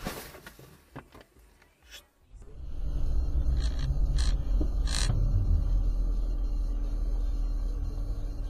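Low steady rumble of a car's engine and tyres heard from inside the cabin as it drives slowly along a snowy street, with a few short clicks a couple of seconds in. It is preceded by a brief faint stretch with scattered clicks.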